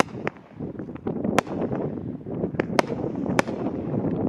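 Shogun Click Bang consumer firework going off: about six sharp cracks at uneven intervals, the loudest about halfway and near the end, over a steady low rush of wind on the microphone.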